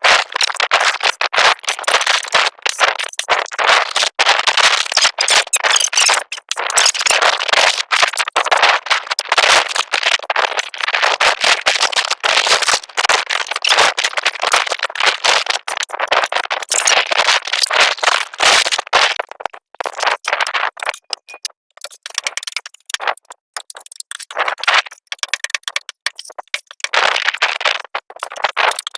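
Repeated scraping of a filler spreader working body filler over the van's steel body panel, in quick irregular strokes with a few short pauses near the end.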